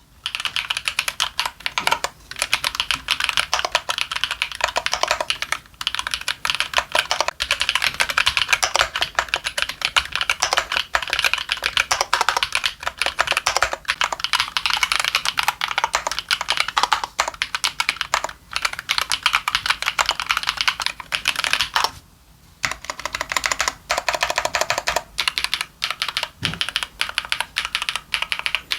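Continuous fast typing on a NocFree Lite wireless split mechanical keyboard with NocFree Snowpaw switches, top-mounted and fully foamed. The keystrokes run in dense streams broken by a few short pauses, the longest about three quarters of the way through.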